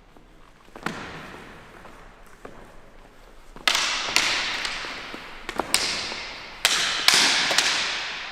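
Steel practice swords clashing in sparring: a single strike, then a flurry of sharp clashes in quick pairs, each ringing and echoing away over about a second.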